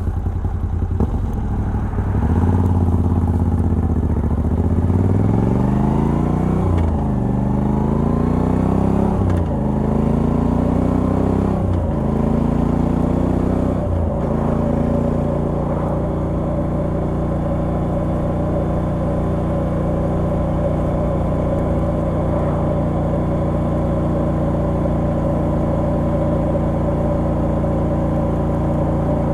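Moto Guzzi V85TT's air-cooled V-twin on a stock exhaust with the catalyser removed, accelerating through the gears. Its pitch climbs and drops sharply at each of four upshifts, then it settles into a steady cruise for the second half.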